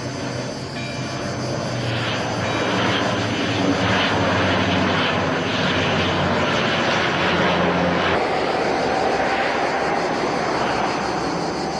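Canadair water-bombing aircraft flying past, its engines growing louder over the first few seconds. The tone shifts about eight seconds in.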